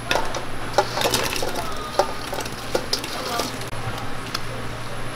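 Several light clinks and knocks at irregular intervals, over a steady low hum and faint background voices.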